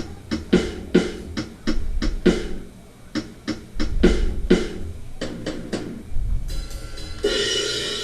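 Drum kit sounds from GarageBand, played on a MIDI keyboard: kick and snare hits, two or three a second in an uneven pattern, with a cymbal crash ringing out near the end.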